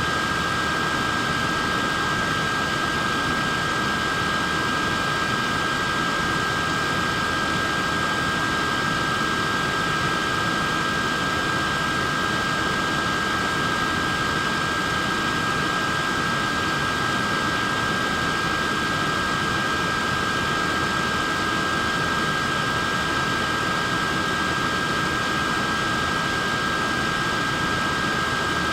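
Wearable neck fan running steadily: an even airy whoosh with a steady high-pitched motor whine.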